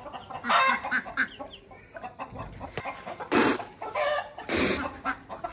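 Two short hissing sprays of water blown from a man's mouth over an Aseel rooster, the first about three seconds in and the second about a second later, with the rooster clucking.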